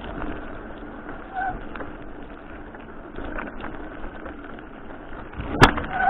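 Hercules Top Gear A29 mountain bike being ridden: a steady rolling hiss of tyres and drivetrain, with one sharp click near the end.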